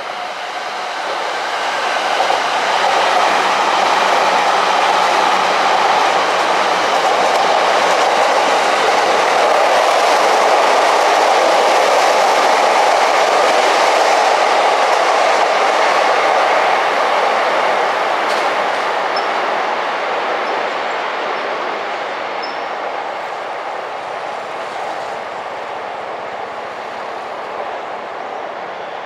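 Electric passenger train running past on the tracks. It grows louder over the first few seconds, stays at its loudest for about fifteen seconds, then fades away slowly.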